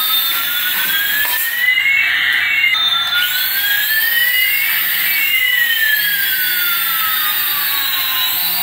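Toy RC helicopter's small electric rotor motors whining in flight: two high whines, one rising in pitch while the other falls, crossing each other twice, with a brief break about three seconds in.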